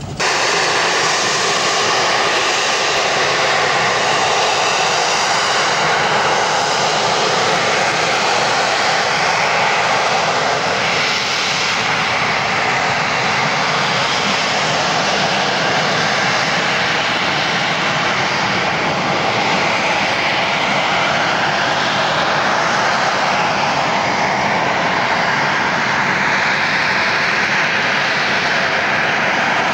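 Harrier jump jet's Pegasus turbofan running loud and steady as the jet flies slowly past, its whine rising and falling in pitch in the second half.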